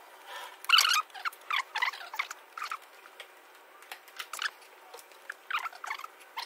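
Plastic timing belt cover being handled and fitted into place on the engine: irregular clicks, scrapes and light rattles, loudest about a second in.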